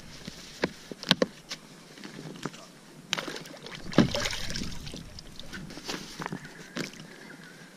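Scattered knocks and clatter of fishing gear and a measuring mat being handled on a fishing kayak, with a louder splash about four seconds in as a fish is pulled from the water beside the kayak.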